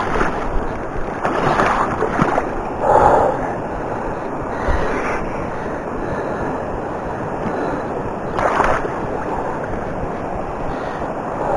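Steady rush of fast-flowing river water, with wind on the microphone and a few brief louder swells.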